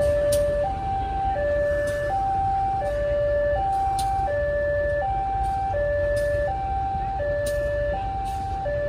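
Railway level-crossing warning alarm sounding a steady two-tone electronic signal, a lower and a higher tone alternating about every 0.7 s, over a low rumble.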